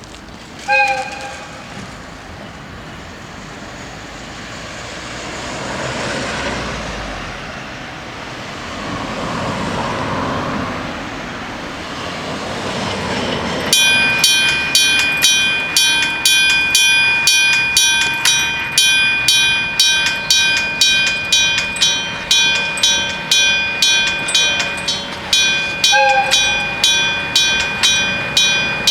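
A Japanese level-crossing warning bell starts about halfway through and rings steadily, about one and a half strikes a second. Before it, noise swells and fades twice as vehicles pass. A short locomotive horn blast sounds just after the start and again near the end.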